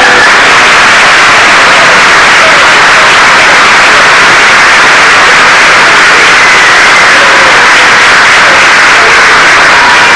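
Audience applauding, an even clatter recorded so loud on the home-video soundtrack that it distorts into a steady hiss.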